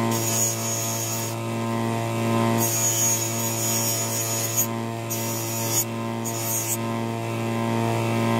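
Electric bench grinder running with a steady motor hum while a rusty steel garden trowel blade is pressed against its abrasive wheel in several strokes, each a rasping hiss of rust and metal being ground off, with short pauses between strokes.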